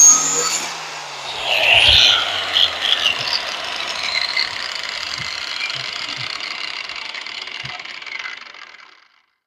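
Angle grinder with a 60-grit flap disc switched off after a grinding pass and winding down: its whir falls in pitch and fades out about nine seconds in. A few light metal clinks come as the mower blade is handled.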